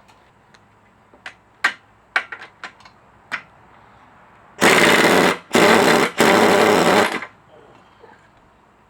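A few light metal clinks of tools on brake parts, then a pneumatic impact wrench rattling in three bursts of under a second each, about halfway through, working loose a fastener on the brake caliper.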